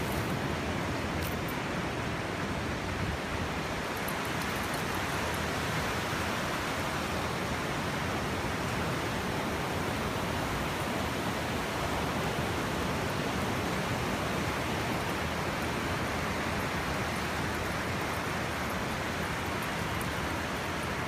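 Steady rush of ocean surf breaking along the shore, mixed with wind buffeting the microphone.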